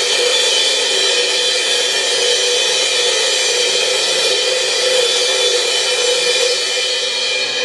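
Three suspended cymbals played continuously with drumsticks, a loud, dense wash of ringing overtones with no separate strokes standing out.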